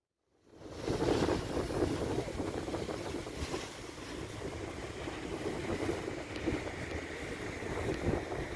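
Wind buffeting the camera microphone at a hilltop launch, a steady rumbling rush that fades in from silence about half a second in.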